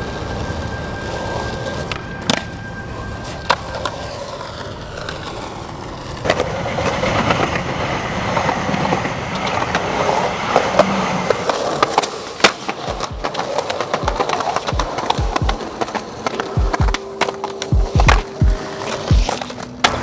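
Skateboard wheels rolling on concrete, with occasional sharp clacks of the wooden board. In the second half come many quick knocks and low thumps: tail pops and landings.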